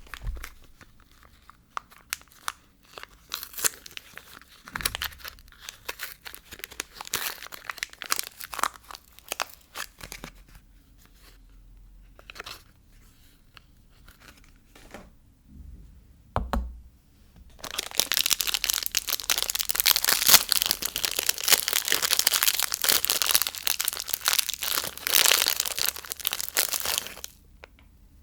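Soap packaging being torn open and crinkled by hand: scattered crackles at first, then, after a quieter stretch, a long, dense, loud run of tearing and crinkling that stops shortly before the end.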